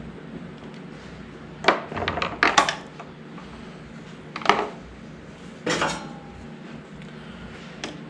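Small metal hand tools clinking and clattering as they are handled and picked up from the mower's engine shroud. There is a cluster of short clinks about two seconds in, then single clatters around four and a half seconds and near six seconds.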